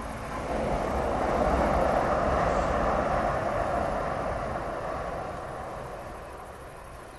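Several coupled Stadler RegioShuttle RS1 diesel railcars passing along the line. The train noise swells to a peak about two seconds in, then fades as the train draws away.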